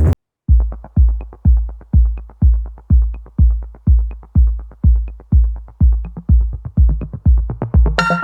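Electronic dance music played loud through a 'sound horeg' carnival sound system: after a brief drop-out, a heavy bass kick drum pounds about twice a second, and synth chords come in near the end.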